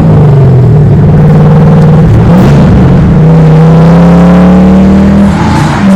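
Cammed LS1 5.7-litre V8 revving: a quick rise in revs at the start, then held high and climbing slowly, with a brief dip about two seconds in and another near the end.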